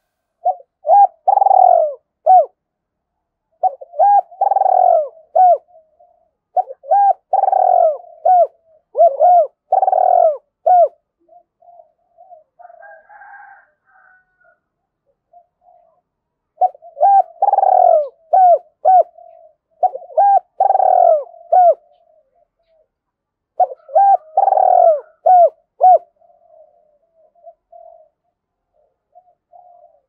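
Spotted dove cooing: seven phrases of several short coo notes each, in two bouts with a pause of a few seconds in between.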